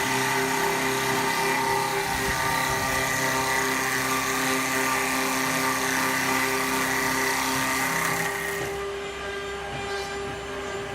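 Double-spindle CNC wood lathe turning two table-leg blanks at once, with cutters feeding in from both sides: a dense, steady hiss of wood being cut over the steady hum and tones of the machine's motors. After about nine seconds the cutting noise drops away, leaving the motor tones.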